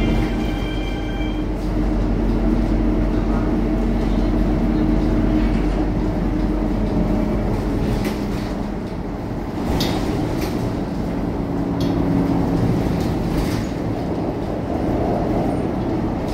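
Scania K230UB single-deck bus heard from inside its passenger cabin while driving: a steady engine and drivetrain hum with a pitched whine that shifts in pitch. A deep rumble drops away about halfway through, and several short knocks and rattles from the body and fittings follow.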